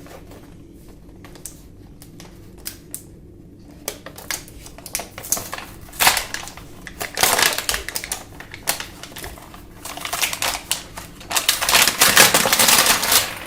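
Toy gun packaging being opened and handled: cardboard and plastic crinkling, tearing and clicking. A few scattered clicks at first, then a dense run from about four seconds in, loudest in two stretches, one around the middle and one near the end.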